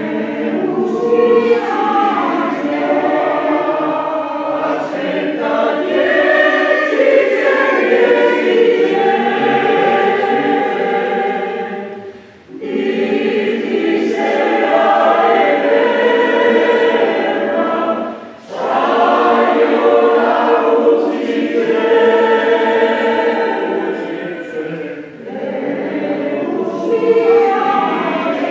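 Mixed choir of men and women singing a habanera in several voice parts, the singing broken by short pauses between phrases about twelve and eighteen seconds in.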